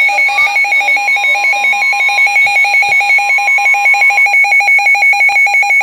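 Weather radio receiver's alert alarm going off for a severe thunderstorm warning: loud, rapid electronic beeping, about eight beeps a second, steady and unbroken.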